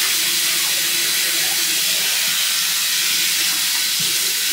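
Bathroom faucet running steadily into the sink, a constant even hiss of water.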